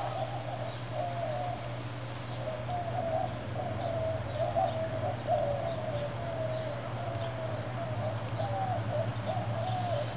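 A person blowing long, steady breaths into a smouldering ember in a leaf tinder bundle to bring it to flame, the breath carrying a wavering whistle-like tone that breaks every second or so, over a steady low hum.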